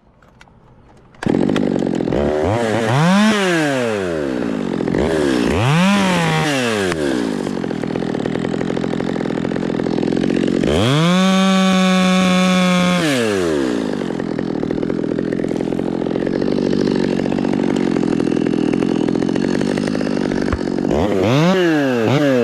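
A two-stroke gas chainsaw comes in abruptly about a second in. Its throttle is blipped twice in rising-and-falling revs, then held wide open for about two seconds midway. It drops back to a lower steady run, then is revved up and down again near the end.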